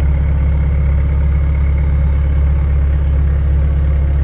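Tractor engine running steadily at an even speed, a deep constant hum with no revving.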